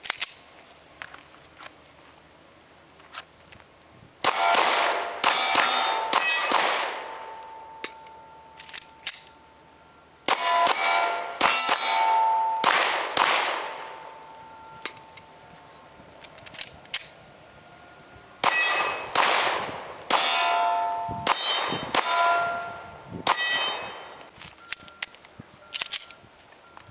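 Glock 19 9mm pistol fired in three quick strings of shots, each hit answered by the clang and ringing of steel targets. Pauses of several seconds separate the strings.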